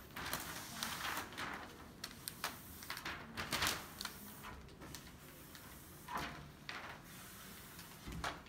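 A plastic squeegee scraping over smart film as the film is pressed onto a glass panel, with the loose film sheet rustling. The short strokes come thick in the first few seconds, then thin out to a few single strokes.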